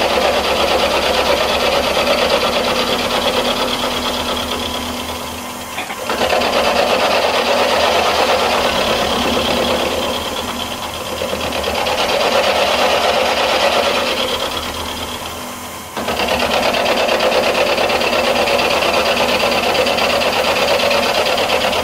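Milling machine with an end mill cutting down the boss of a cast rocker arm: a steady, loud chattering cut, the final pass to bring the boss to height. The sound drops away briefly about six and sixteen seconds in, then resumes.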